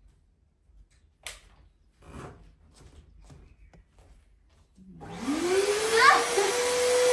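Stainless-steel drum canister vacuum cleaner switched on about five seconds in: its motor whine rises quickly in pitch as it spins up, then holds a steady high hum over loud airflow hiss. Before that there is near quiet with one sharp click about a second in.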